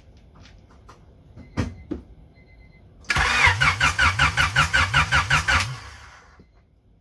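Honda H22 engine turned over on its starter motor for about two and a half seconds, with a steady pulsing of about six beats a second, kept from firing so that it only cranks and does not start. A couple of sharp clicks come a second or so before the cranking.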